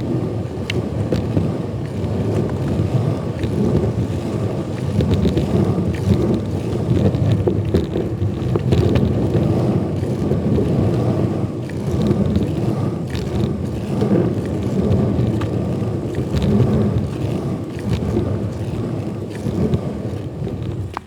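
Cruiserboard wheels rolling on a concrete floor, heard from a mic on the underside of the deck: a continuous low rumble with small clicks and rattles from the deck and trucks. The rumble fades out right at the end.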